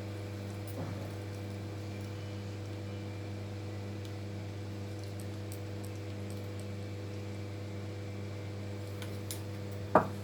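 A steady low electrical hum, like a fan or appliance motor. A few faint clicks come through it, and a single sharp knock sounds just before the end.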